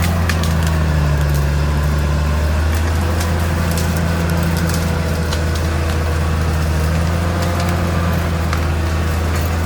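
Caterpillar D6R XL bulldozer's diesel engine running steadily, with scattered sharp cracks and snaps of splintering wood as the dozer pushes through trees and brush.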